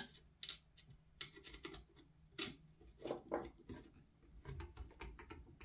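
Faint, irregular clicks and taps of a T20 Torx screwdriver and small parts being handled against an airsoft rifle's body during reassembly.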